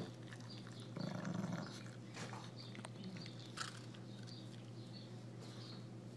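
A pug gnawing a raw carrot: scattered small crunching clicks, with a short louder grunt about a second in.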